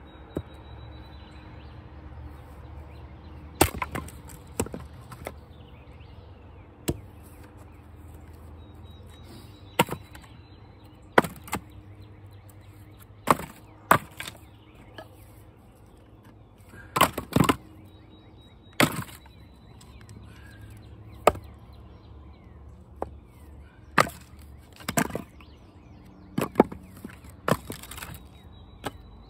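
Axe blows splitting knotty, crotchy red maple firewood rounds: about sixteen sharp chopping strikes at irregular intervals, some coming in quick pairs as the wood cracks apart.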